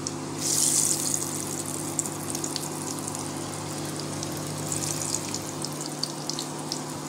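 Chana dal batter fritters deep-frying in hot oil: a steady sizzle with scattered pops and crackles, swelling louder about half a second in as a fritter is turned over with a wooden spatula. A steady low hum runs underneath.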